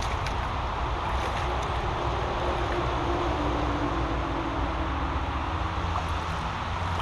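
Shallow brook water running and splashing over stones where the channel beside a concrete pipe has just been cleared, over a steady low rumble. A faint hum drifts through around the middle.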